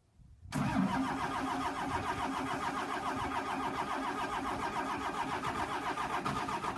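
Intercooled 12-valve Cummins diesel cold-starting at 23°F with no block heater. The engine noise comes in suddenly about half a second in and carries on as a steady, fast rhythmic pulsing.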